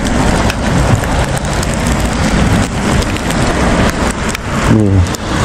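Steady rushing noise of riding a bicycle through wet snowfall: wind buffeting the microphone with a low rumble, mixed with a hiss like falling rain, and a few short clicks.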